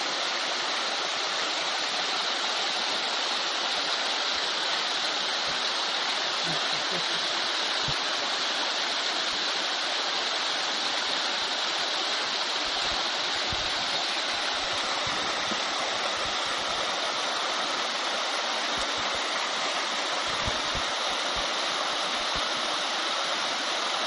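A small waterfall and cascading stream splashing steadily over limestone and calcareous tufa ledges, a constant rushing of water.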